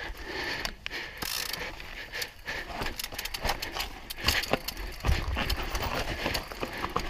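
Mountain bike rolling over rocks: the freehub ratcheting and the chain and frame rattling in quick clicks, with a heavier rumble of tyres on stone from about five seconds in.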